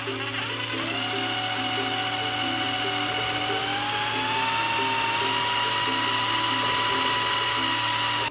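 Ryobi cordless drill motor whining at speed as it spins a string of magnets with no load, its pitch rising slowly over the first few seconds and then holding steady. Light plucked background music plays underneath.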